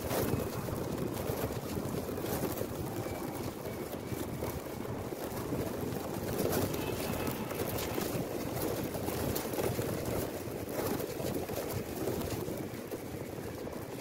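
Wind buffeting the microphone of a mobile phone tied to a flying kite: a steady rushing rumble with a few short clicks.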